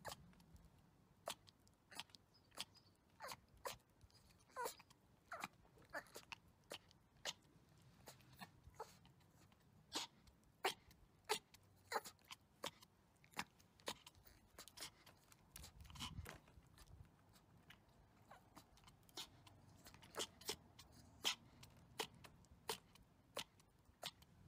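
A Pomeranian licking and smacking its lips: a quiet, irregular run of wet clicks, about one or two a second.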